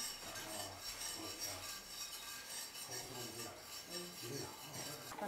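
A spoon stirring in a stainless steel pot, scraping and rubbing against the metal.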